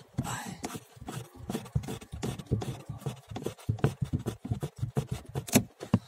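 Handling noise: irregular rubbing and scraping with many small light knocks, with no steady sound.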